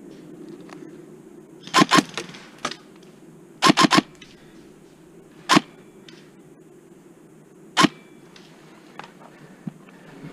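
Airsoft gun firing: a quick pair of shots, a quick burst of three, then two single shots about two seconds apart.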